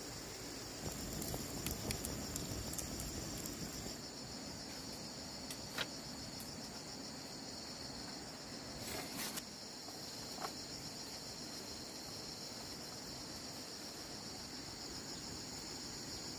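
A steady, high-pitched chorus of insects chirring, with a few light knocks and rustles scattered through it.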